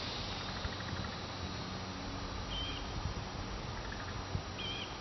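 Steady wind noise on the microphone, with two short high chirps, one about two and a half seconds in and one near the end.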